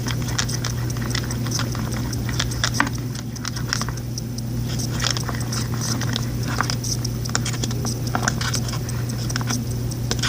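Slime being mixed after the activator solution has been added, still wet and not yet come together: irregular sticky clicks and squelches, several a second. A steady low hum runs underneath.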